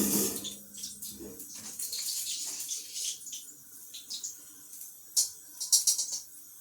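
Kitchen preparation sounds: an uneven, water-like hiss, with several sharp clinks of utensils about five to six seconds in.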